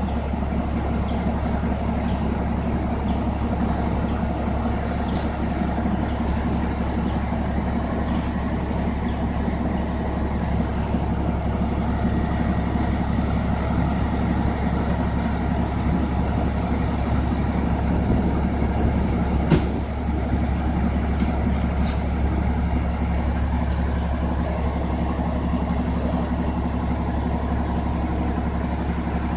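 Fire truck's diesel engine idling steadily, with one sharp knock about two-thirds of the way through.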